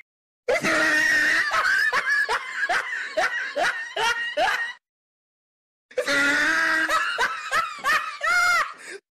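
Laughing sound effect: a person's rapid repeated 'ha-ha' laughter, about three laughs a second, in two stretches with a sudden cut to silence of about a second between them.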